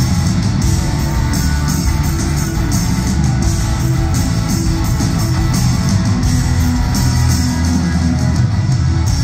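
Live rock band playing a guitar-led passage: electric guitars, bass and drums over a steady beat, heard through the concert hall's sound system.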